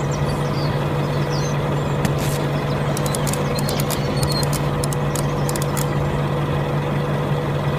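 Tractor engine running steadily at a constant idle-like drone, with a few light clicks about three to five seconds in.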